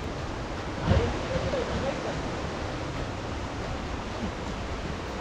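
Steady rushing of falling water, with a thump about a second in and a brief snatch of a voice just after.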